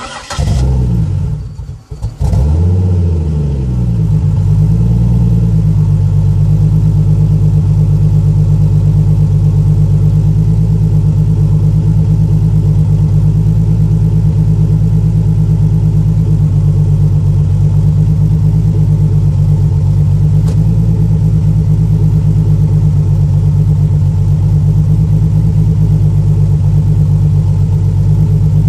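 Engine exhaust: the engine fires up suddenly, falters for a moment about two seconds in, then catches, its speed settling over a few seconds into a steady, loud, low idle.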